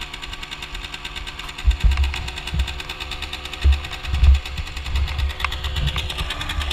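A Malossi 172-kitted Gilera Runner's single-cylinder two-stroke engine idling with a fast, even pulse. Several low thuds from the camera being handled sound over it.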